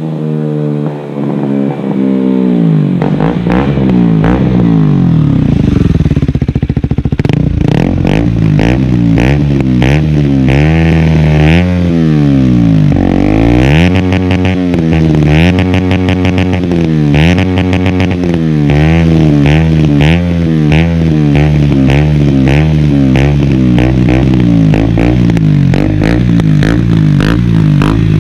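KTM Duke 125's single-cylinder engine through a Radical Racing GP Carbon full exhaust with the racing dB killer fitted, revved up and down repeatedly and loud.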